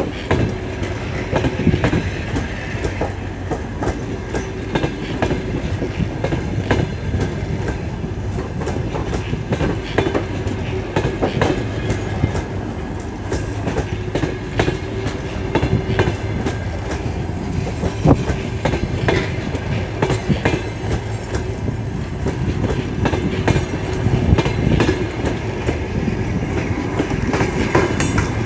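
Ukrainian Railways passenger coaches rolling past as the train pulls out of the station, their wheels clattering over the rail joints in an irregular clickety-clack, with a steady tone running underneath.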